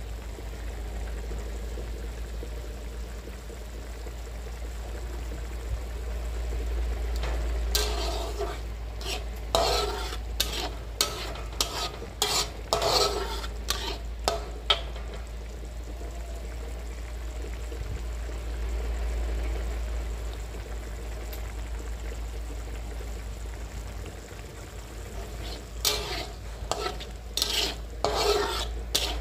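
Blended chili spice paste sizzling as it fries in a wok, with a metal spatula scraping and stirring through it. There are two spells of quick stirring strokes: one from about a quarter to halfway through, and another near the end.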